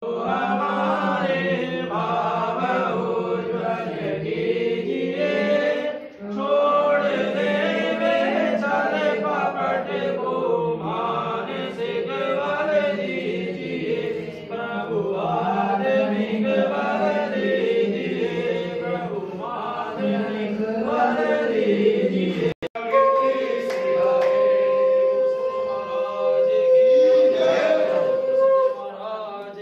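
A group of voices chanting a Hindu devotional chant, breaking off briefly twice. Near the end a single steady tone is held for several seconds over the voices.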